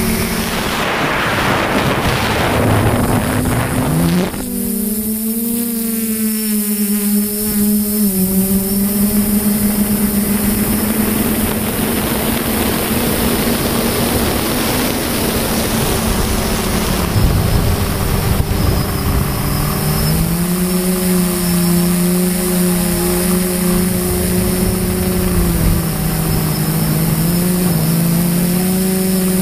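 Model aircraft's motor and propeller droning steadily, heard from the onboard camera with wind rush over it; the pitch shifts a few times, dipping and climbing about four seconds in and settling a little lower about two-thirds of the way through.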